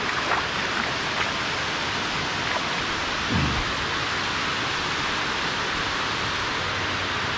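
Steady rush of water cascading down a dam's concrete spillway face, with a brief low thump about three and a half seconds in.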